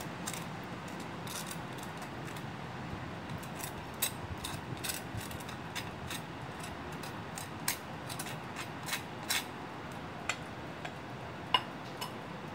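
Table knife spreading garlic butter over a slice of toasted baguette: irregular crisp scrapes and crackles from the crust, over a steady low hiss, with one sharper click about a second before the end.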